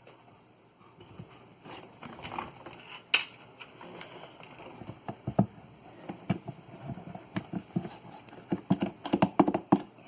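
Irregular knocks, taps and clatter of wood pieces and tools being handled and fitted, with one sharp click about three seconds in and a quick run of knocks near the end.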